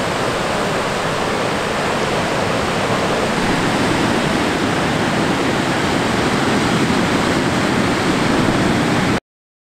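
Ocean surf breaking on the beach: a steady rush of waves and whitewater that grows a little louder, then cuts off abruptly about nine seconds in.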